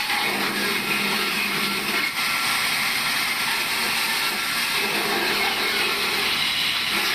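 Sawmill saw running with a loud, steady machine noise.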